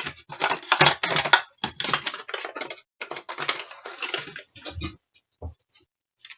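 Small hard objects clattering and clicking as they are handled and set down on a workbench, a quick run of knocks that thins to a few isolated clicks near the end.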